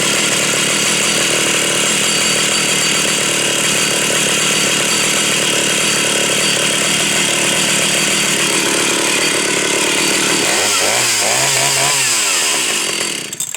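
Stihl 031AV two-stroke chainsaw running at high revs, loud and steady. Near the end its pitch dips and rises a few times, then the sound cuts off abruptly.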